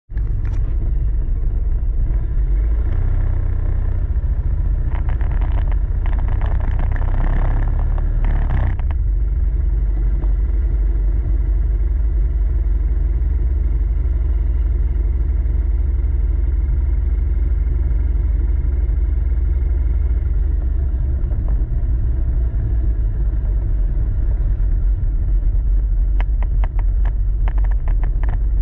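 Steady low rumble of a vehicle driving along a paved road, heard from a GoPro riding on it. It gets brighter and hissier for a few seconds early on, and a few sharp clicks come near the end.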